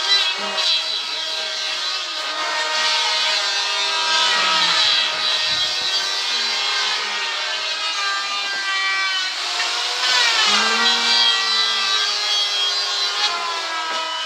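A tool cutting wood, a continuous scraping with shifting, ringing tones through it.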